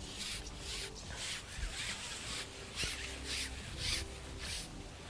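Rhythmic rubbing swishes, two or three a second, as a carbon fishing pole is slid out hand over hand, with wind buffeting the microphone.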